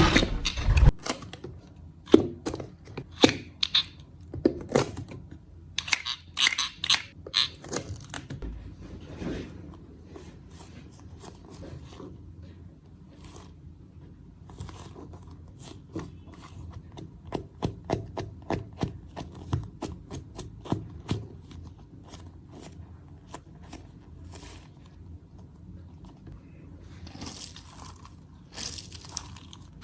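Slime being squeezed and played with: irregular crunchy clicks and crackles. They come thickly in the first ten seconds and again between about seventeen and twenty-one seconds in, with quieter stretches between.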